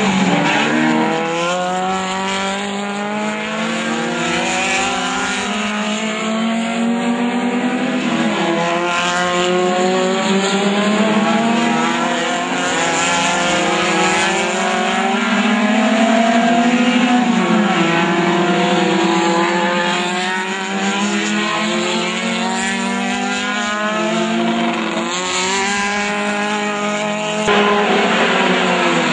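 Racing VW Gol hatchbacks running hard past on track, their engines revving up and dropping back through gear changes. Several engines overlap and rise and fall in pitch throughout, with an abrupt shift in the sound near the end.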